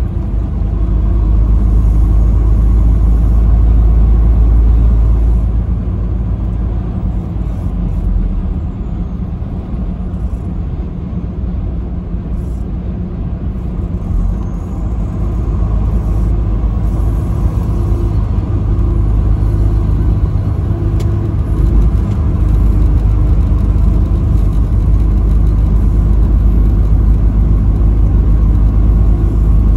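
Steady low rumble of a vehicle driving at highway speed, engine and road noise together. It eases off for several seconds a fifth of the way in, then comes back up.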